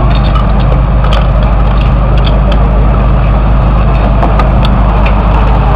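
Portable fire pump's engine running steadily, with scattered sharp clicks and knocks as hoses and couplings are handled.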